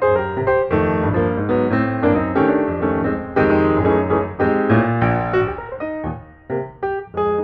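Background piano music: a run of notes played in quick succession, thinning to a few separate chords near the end.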